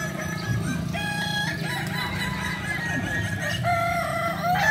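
Several Ayam Kukuak Balenggek roosters, a West Sumatran breed kept for its long, many-syllabled crow, crowing over one another. Their long crows are made of held notes that step from one pitch to another.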